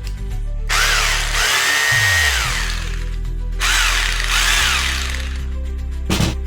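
Makita hammer drill motor run in two short bursts, its whine rising and falling each time, over background music. A short sharp click comes near the end.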